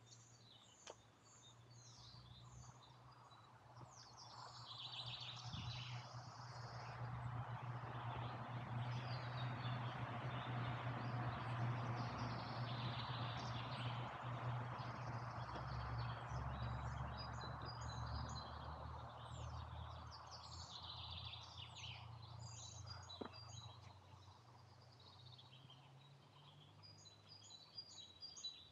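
Several songbirds singing and chirping in woodland over a steady low hum, while a broad noise swells over the first few seconds, holds for about fifteen seconds, then fades away.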